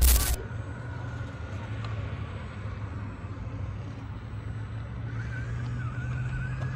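A short loud burst right at the start, then a small RC rock crawler's electric motor and gearing whining steadily over a low hum as the truck creeps up rock, the whine wavering near the end.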